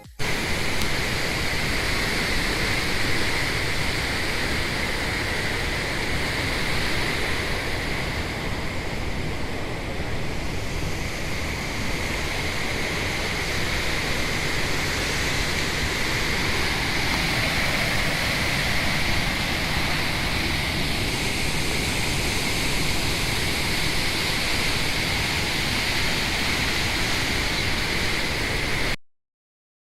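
Steady rushing of flowing water, an even hiss-like roar that runs unchanged, then stops abruptly near the end.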